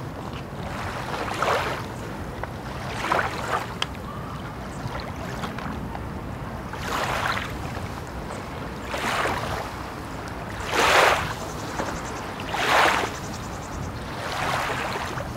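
Water washing against a shore: a steady low rumble, with a soft whoosh of surf about every two seconds. There are seven whooshes, and the strongest comes about eleven seconds in.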